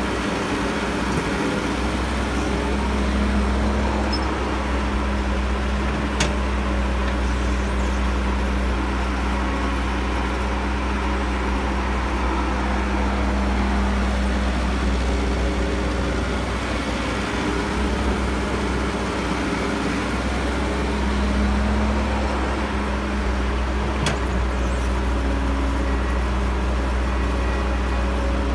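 Diesel engine of a CAT E315B hydraulic excavator running steadily while it works, its pitch and level swelling slightly at times under load, with two brief sharp knocks.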